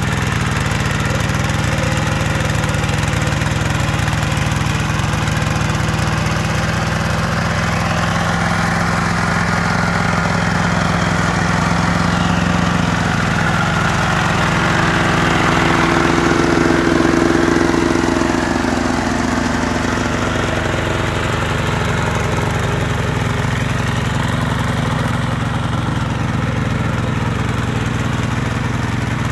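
Yanmar single-cylinder diesel engine of a two-wheel hand tractor running steadily while the tractor works through deep paddy mud. Its pitch and loudness rise for a few seconds about halfway through, then settle back.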